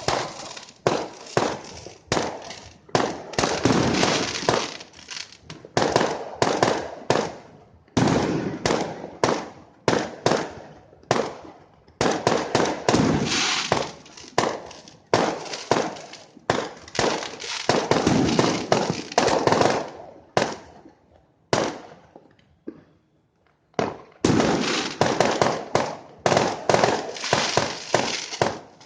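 Fireworks exploding in rapid volleys of sharp bangs, each trailing off, with a short lull about three-quarters of the way through before the bangs resume.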